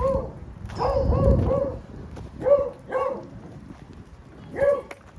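Beagle barking in short, pitched yelps, a quick run of three about a second in, then single barks spaced out over the next few seconds.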